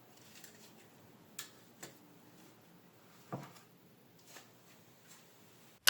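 A few scattered light clicks and taps over faint steady hiss, four or five in all, the clearest about a second and a half in and again past the three-second mark.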